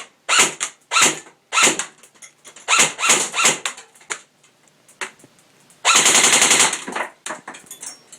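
G&G GR15 electric airsoft rifle firing BBs at a phone: a string of single shots, then a short full-auto burst about six seconds in.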